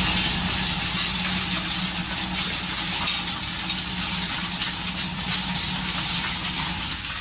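A running machine with a steady, loud hissing rush, like liquid spraying, over a low steady hum.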